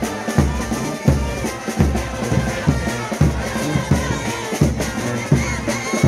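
Frevo orchestra playing live in the street: brass and saxophones carry a melody over a steady, fast bass drum and snare beat.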